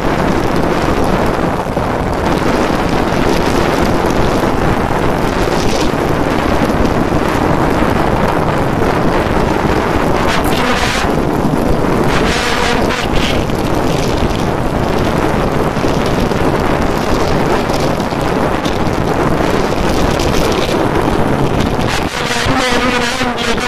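Heavy wind buffeting the microphone on a Honda CBR150R running at about 130 km/h, with its single-cylinder engine revving high underneath. Near the end the wind eases a little and the engine's tone comes through more clearly.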